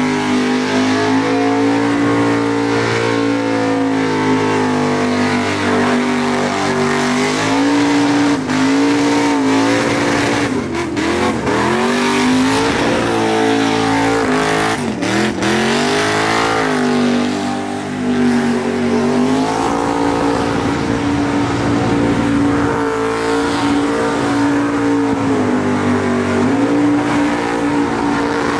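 Supercharged VH Holden Commodore engine held at high revs through a burnout, rear tyres spinning and squealing on concrete. Twice, around the middle, the revs drop briefly and climb straight back up.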